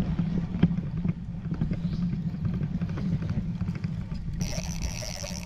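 Fishing reel being wound in while a hooked fish is played, a steady low whirr with handling noise on the rod. About a second before the end a higher, fast ratcheting sound from the reel joins in.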